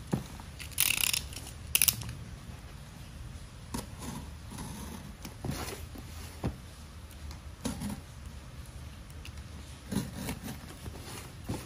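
Hands handling a cardboard shipping box. There are two sharp scratching rasps about a second in, then scattered taps and knocks on the cardboard, and a plastic box cutter is handled near the end.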